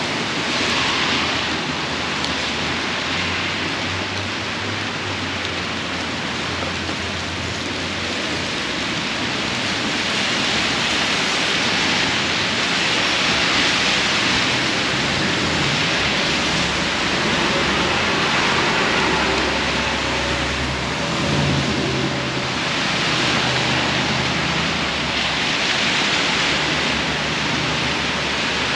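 Heavy rain pouring steadily on a city street, with a low drone of traffic underneath.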